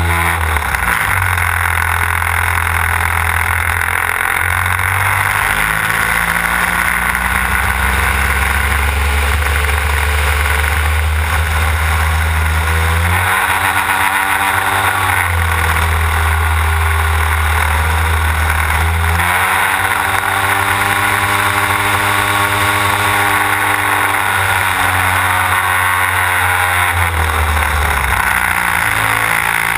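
Desert Aircraft DA-150 twin-cylinder two-stroke gasoline engine and propeller of a large-scale aerobatic model plane running in flight, heard on board. The engine speed changes several times as the throttle is worked, dropping and rising again about 13 and 15 seconds in, near 20 seconds and near 28 seconds.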